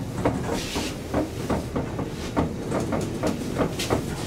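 1972 Kone Asea Graham inclined elevator car travelling down its incline: a steady low rumble with rattling knocks about three or four times a second as the car shakes. A short hiss comes about half a second in.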